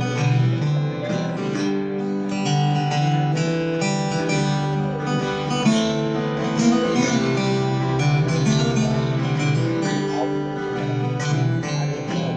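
Instrumental break of a country gospel song: strummed acoustic guitar carrying the tune, without singing.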